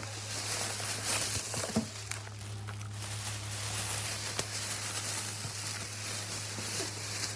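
Steady low indoor hum with a faint even hiss, broken by a few small clicks and rustles.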